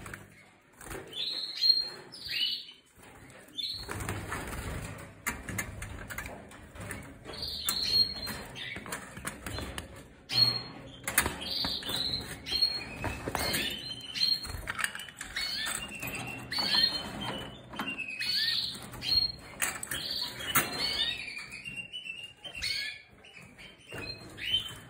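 Timbrado Español canaries in breeding cages giving many short, falling chirps over and over, with bursts of wings fluttering in the cage.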